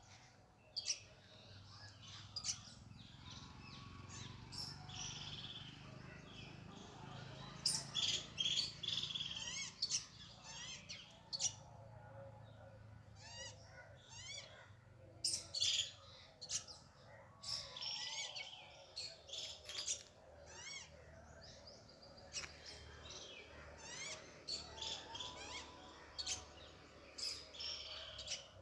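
Birdsong: several birds calling, with many short, sharp chirps and rapid trills repeating throughout, over a steady low background rumble.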